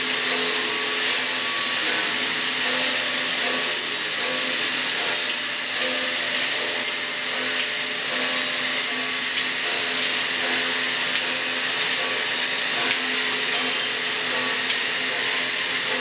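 Kinetic sculpture of bicycle frames and wheels running: a steady mechanical whirring and rasping with a low hum and faint ticking.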